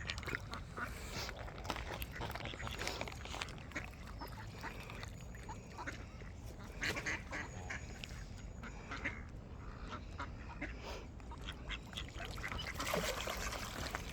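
Ducks quacking and Canada geese honking, many short calls overlapping in no set rhythm, as a flock of waterfowl crowds in to be fed.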